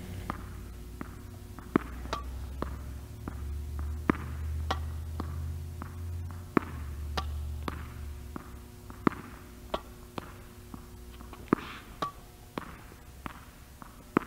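Tennis ball being struck with a racket and bouncing on a hard indoor court: a string of sharp single pops, about one or two a second and unevenly spaced, over a low steady hum.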